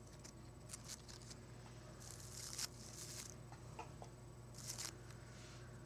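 Hands rustling and brushing through a bouquet of fresh flowers, close to the microphone: a few soft, crisp rustles, the loudest about halfway through.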